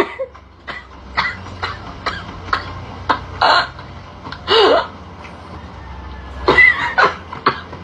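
A woman sneezing over and over: a run of about a dozen short, sharp sneezes, a few longer and voiced, with a brief pause in the middle.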